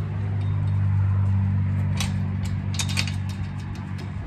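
A steady low hum from a running motor, with a few sharp clicks and rattles about two and three seconds in.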